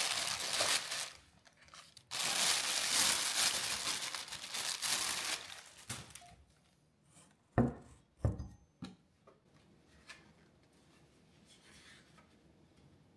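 Plastic wrapping crinkling and rustling as it is pulled off a Lagom P64 coffee grinder, in two stretches. Then three sharp knocks, the first the loudest, as the grinder and its parts are set down on a wooden tabletop.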